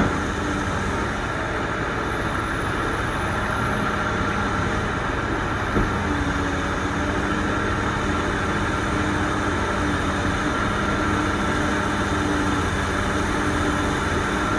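Heavy diesel mining machinery running steadily: a BEML BE1000 excavator working and BEML BH60M dump trucks idling, a continuous engine hum. A short knock comes at the very start and another about six seconds in.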